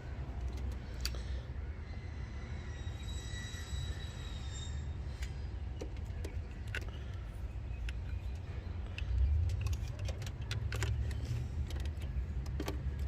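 Scattered small metallic clicks and taps of hand tools and parts being handled, over a steady low rumble.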